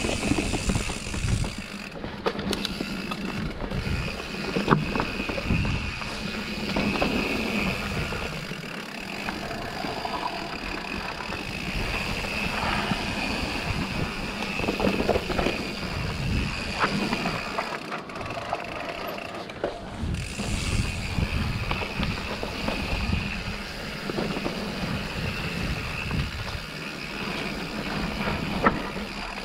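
Santa Cruz Bronson V4 mountain bike riding down a dirt singletrack: tyres rolling over dirt, with the chain and suspension rattling and sharp knocks as the wheels hit roots and rocks. A steady high-pitched buzz sits underneath.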